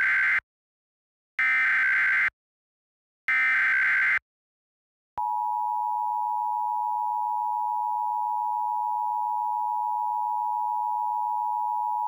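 Emergency Alert System header tones: the end of one SAME digital data burst and two more bursts, each just under a second long, encoding a Civil Emergency Message. After about a second's pause, the steady two-tone EAS attention signal starts about five seconds in.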